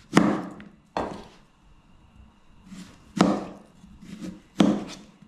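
A knife slicing through a firm plantain and knocking on a cutting board: four sharp knocks, unevenly spaced.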